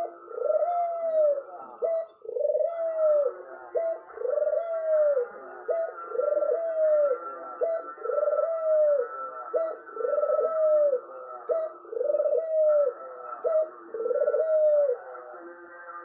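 Spotted dove (tekukur) cooing repeatedly, about one phrase every two seconds. Each phrase is a short clipped note followed by a longer, rising-then-falling coo.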